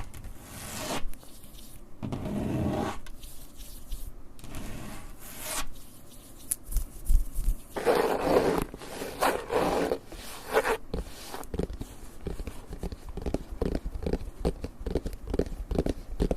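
Close-miked ASMR scratching: slow, separate scraping strokes of about a second each, then a louder patch of scratching, and near the end quick short scratches at about three a second.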